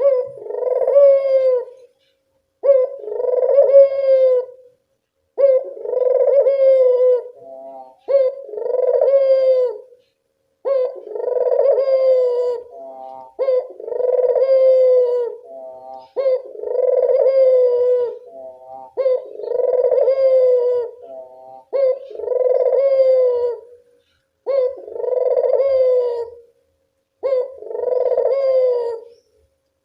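A puter dove (domestic ringneck, or Barbary, dove) cooing: a steady series of about a dozen rolling coos, one every two and a half seconds or so. Several coos are followed by a quick run of short stuttered notes.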